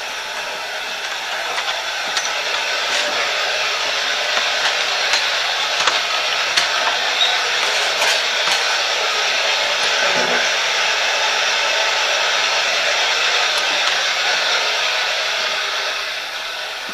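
A steady rushing noise with a few faint clicks. It grows a little louder over the first several seconds and eases off near the end.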